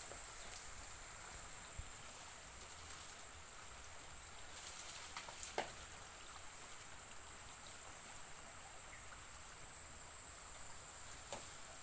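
Rural outdoor ambience among tall areca palms: a steady hiss of wind through the leaves, with a constant high-pitched drone and a few faint clicks a little past the middle.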